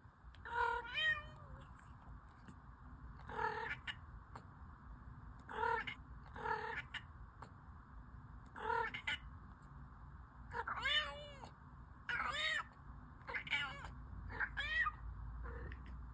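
Domestic cat meowing repeatedly, about ten meows a second or two apart, some rising and falling in pitch.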